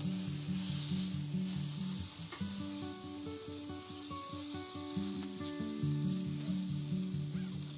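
Thin-sliced beef brisket sizzling steadily in a hot pan as it is laid in and moved around with metal tongs, over background music with a repeating bass line.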